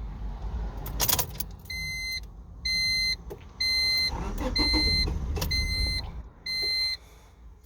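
A car's electronic warning chime beeping six times, about once a second, each beep a clear steady tone. A sharp click about a second in, the loudest sound, comes before the beeps, and a low rumble runs underneath.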